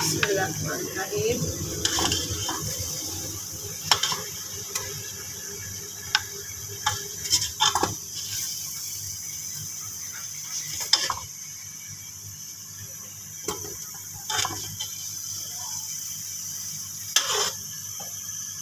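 A steel ladle scraping and clinking against the pressure cooker pot and a plate as fried chicken pieces are lifted out, in a dozen or so separate clinks, over the steady hiss of hot oil sizzling in the pot.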